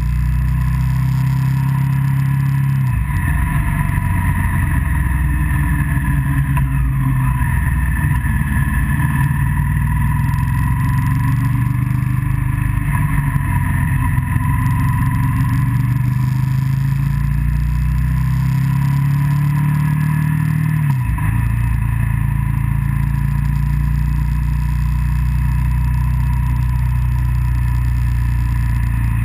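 Motorcycle engine running under way at road speed, its note steady apart from two sharp drops in pitch, one near the start and one about two-thirds through.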